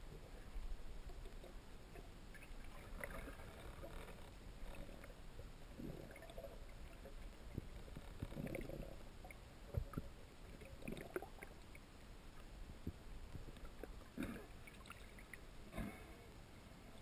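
Faint river water gurgling and sloshing, with scattered soft knocks and clicks.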